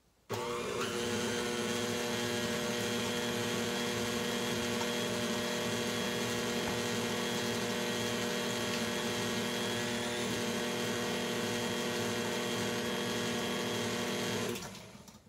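KitchenAid tilt-head stand mixer running at a steady speed, beating eggs and vanilla into the sugar-and-oil mixture in its steel bowl. Its motor hum switches on abruptly just after the start and winds down near the end when it is switched off.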